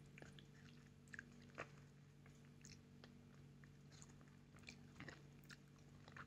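Faint mouth sounds of a ripe mango slice being bitten and chewed: soft, wet clicks and smacks coming every second or so, over a steady low hum.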